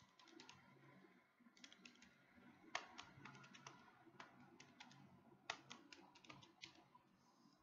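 Faint clicking of keys pressed in several short, quick runs, as figures are keyed in to add up a total.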